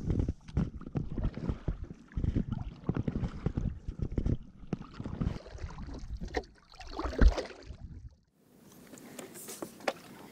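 Stand-up paddleboard being paddled: the paddle blade dips and pulls through calm lake water, with splashing and sloshing at each stroke. About eight seconds in the sound breaks off sharply, and a quieter, clearer stretch of paddling follows.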